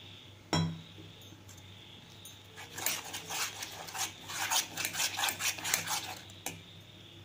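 Metal spoon stirring and scraping wet wheat flour and jaggery syrup in a stainless steel bowl, mixing the batter. A single knock about half a second in, then a run of quick scraping strokes for about three seconds, and a click near the end.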